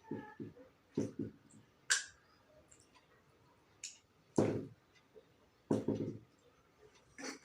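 Mouth sounds of someone eating rice: a few soft chewing sounds and several sharp lip-smacking clicks, spaced irregularly.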